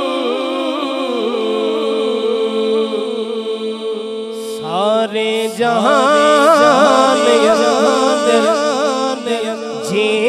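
Male naat singing: a voice sings ornamented, wavering melodic lines over a steady sustained drone. About halfway through, the singing comes back in stronger on a rising slide and carries the melody on.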